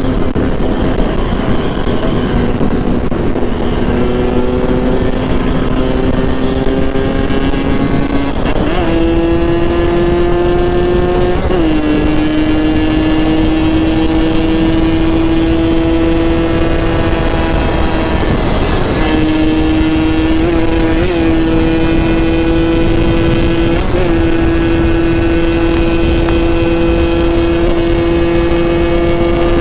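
Yamaha RX-King's 135 cc two-stroke single-cylinder engine running hard under way through a jambakan aftermarket exhaust. It holds one high, buzzing note that climbs slowly for the first several seconds, then steps up and down abruptly a few times before settling at a steady pitch.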